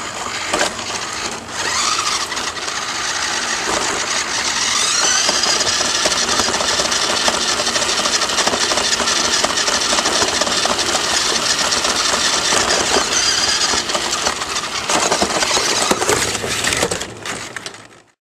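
Small electric RC 4x4 truck's motor and gearbox whining as it drives over a concrete sidewalk, picked up by a camera riding on its roof, with rattle from the rough surface. The whine climbs in pitch twice in the first five seconds as it picks up speed, then runs on steadily and cuts off suddenly near the end.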